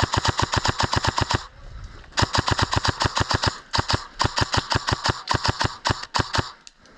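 Airsoft gun firing full-auto in several long bursts of rapid clicking shots, about a dozen a second, with short pauses between the bursts.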